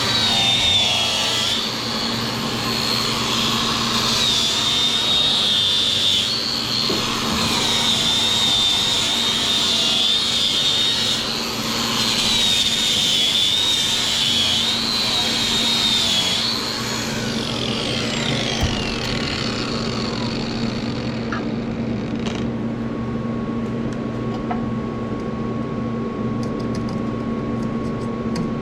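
Power grinder running with a high whine that wavers as it is worked against the metal, then spinning down about two-thirds of the way through, leaving a steady machine hum.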